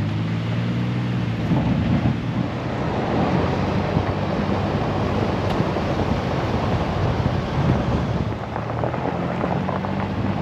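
Side-by-side UTV engine running steadily while driving, with wind buffeting the microphone and rough trail noise that nearly covers the engine through the middle.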